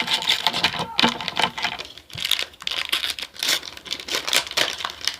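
Trading-card booster pack's foil wrapper crinkling and tearing as it is opened by hand, a dense run of irregular crackles.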